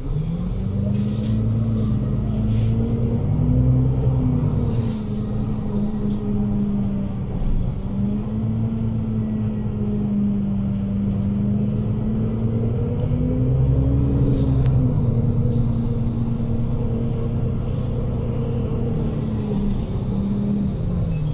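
Interior of an Otokar Kent C12 city bus under way: the engine and drivetrain hum steadily over a low rumble. The hum rises in pitch at the start, wavers up and down with speed, and drops away near the end.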